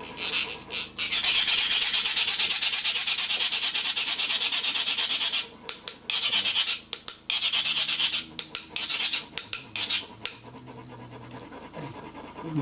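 Metal sand-mandala funnels (chak-pur) being rasped with a metal scraper rod, a fast, even rasping that trickles coloured sand out. It runs steadily for about four seconds, then goes on in shorter stop-start runs of strokes.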